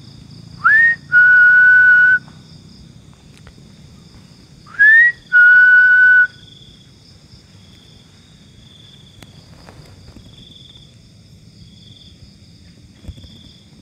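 A person whistling loudly twice, each time a short rising whistle followed by a long held note, the second pair about four seconds after the first. Insects shrill faintly and steadily in the background.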